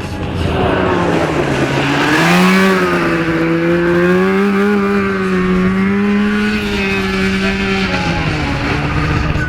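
Racing lawn mower's engine revving hard on the track. Its pitch climbs quickly about two seconds in, holds high for several seconds, then drops near the end.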